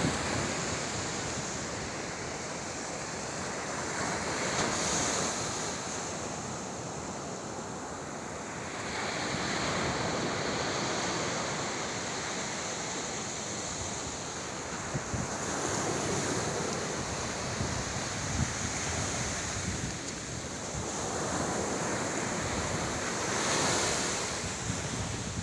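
Sea waves breaking and washing onto the shore, the surf swelling and easing every five or six seconds, with wind buffeting the microphone.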